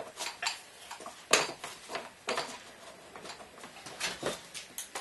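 Irregular light clicks and knocks of someone handling things and moving about, the loudest about a second and a half in.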